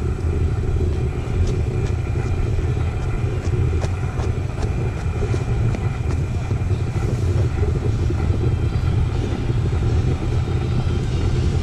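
Steady low outdoor rumble with a few faint clicks over it.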